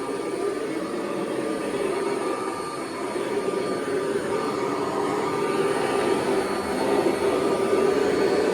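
1982 Kirby Heritage 1 upright vacuum cleaner running steadily, a motor drone with a faint higher whine, growing slightly louder. By its sound the owner judges that the drive belt needs replacing.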